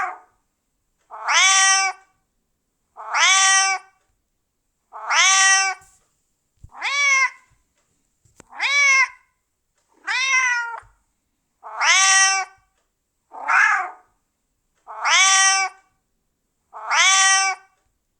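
Domestic cat meowing over and over: about ten separate meows, each under a second long, roughly two seconds apart with silence between them. Most are the same meow repeated, and a few in the middle have a falling, wavering pitch.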